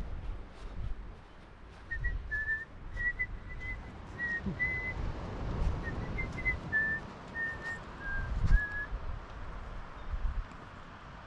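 Someone whistling a tune in short, clear notes that step up and down in pitch, over wind buffeting the microphone.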